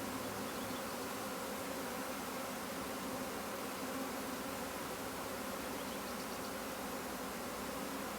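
Honey bee swarm buzzing around a hive box it has just been shaken into: a steady drone of many bees.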